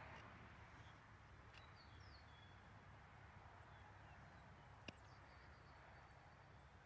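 Near silence: faint outdoor ambience with a few faint, high bird chirps and a single soft click about five seconds in.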